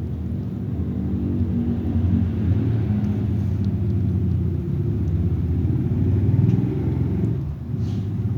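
A low, steady motor rumble with a pitch that drifts up and down.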